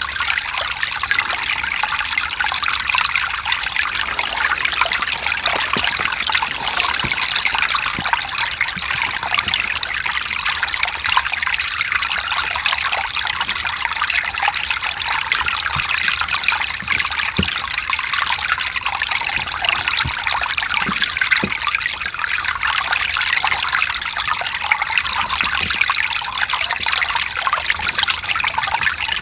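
Mountain stream flowing and trickling over rocks, a steady splashing water sound with most of its energy in the higher range and little low rumble.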